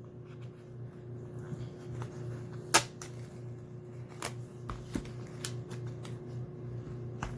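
A handful of sharp, irregularly spaced clicks and taps as a Bluetooth number pad is handled, the loudest about three seconds in, over a steady low hum.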